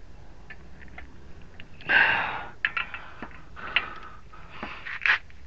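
A hard straining breath about two seconds in and another near the end, with several sharp metallic clicks and clinks from the wrench and tools as the front axle nut is tightened.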